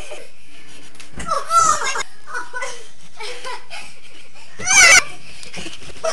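Children laughing and shrieking in high-pitched voices, in short bursts, the loudest about five seconds in. A dull thump about a second in.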